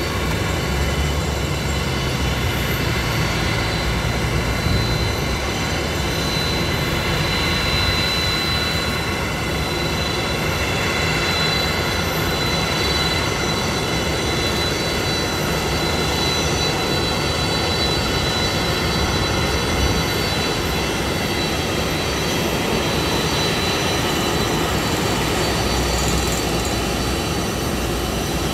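Boeing 747-400's four jet engines at taxi power, a steady engine noise with a high whine over it.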